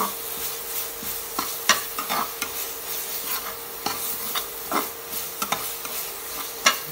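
Metal spoon stirring and scraping a thick spice paste frying in oil in a steel pan, with a continuous sizzle and irregular sharp clicks of the spoon against the pan. A faint steady hum runs underneath.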